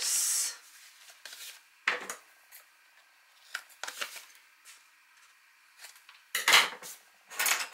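Scissors snipping the corners off a cardstock flap, a few separate short clicks, among paper and tape handling sounds. A brief hiss opens it, and two louder rustles of the card being handled come near the end.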